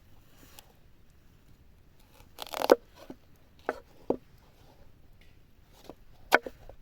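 Food being cut by hand. About two and a half seconds in there is a short crunching cut, then a few separate sharp knocks of a knife on a cutting board.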